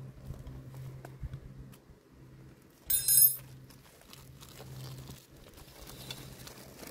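Light clicks and scrapes of a metal spoon in a cooking pot while eating, over a low steady hum. About three seconds in, a short bright metallic ring sounds twice in quick succession and is the loudest thing heard.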